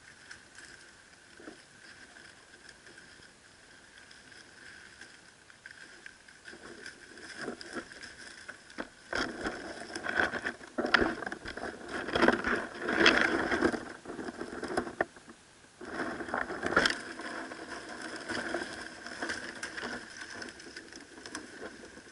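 Lace monitor moving over dry leaf litter close to the camera: irregular crackling rustles and scrapes. They are loudest about halfway through, as its claws grip the edge of a plastic container, with another burst a few seconds later.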